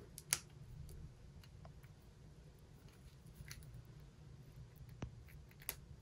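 A few faint, small clicks of a mechanical pencil's parts as its metal tip cone is twisted and unscrewed by hand.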